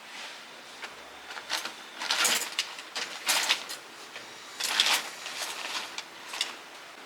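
Irregular short scrapes, knocks and clatters of small hard objects being handled, loudest about two, three and five seconds in, over a faint steady hiss.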